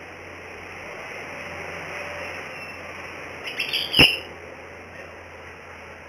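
Small jongkangan cage bird at its water tub: a quick burst of short chirps about three and a half seconds in, ending in a sharp knock, over a steady hiss.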